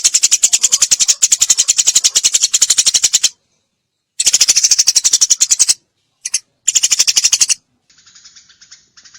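Eurasian tree sparrow giving loud, rapid-fire bursts of high chirps, each burst a fast, even string of short notes. There are four bursts with short gaps between them, followed by a softer, quieter chatter near the end.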